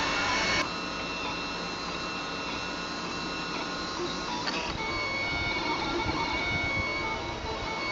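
3D printer running as it builds a plastic part, its stepper motors giving several steady whining tones. The set of tones changes abruptly about half a second in and again near five seconds.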